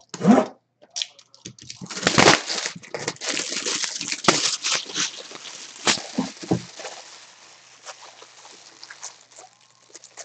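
Plastic shrink-wrap and cardboard packaging crinkling and tearing as a sealed trading-card box is opened. The crackling is dense and loud for several seconds, then dies down to fainter rustling.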